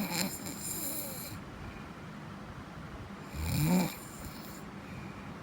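Snoring: the end of one snore right at the start, then a full snore about three and a half seconds in, a pitched sound rising in pitch followed by a hissing breath.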